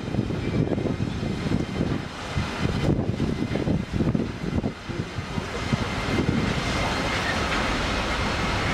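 Double-headed freight train passing: two SBB Re 6/6 electric locomotives with an uneven rumble, then the container wagons rolling by with a steadier rushing noise from about six seconds in.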